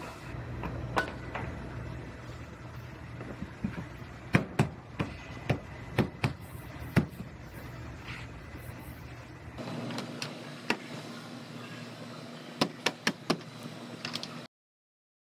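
A series of sharp clicks and knocks from hand work on a car's body parts, over a steady shop hum. The sound stops abruptly near the end.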